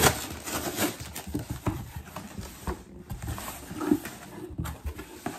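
A cardboard shipping box being opened and its packing handled by hand: irregular knocks, taps and rustles of cardboard and paper.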